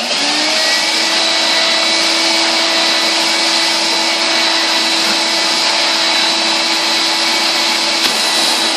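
Numatic Henry vacuum cleaner switched on, its motor whine rising in pitch as it spins up in the first half second, then running loud and steady.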